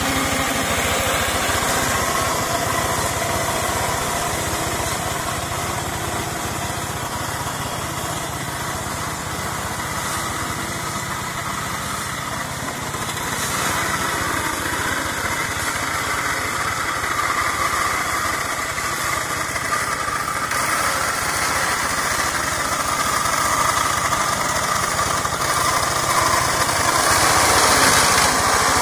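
Two-wheel hand tractor's single-cylinder diesel engine running steadily while it pushes a front-mounted brush-cutting mower through undergrowth, growing louder toward the end.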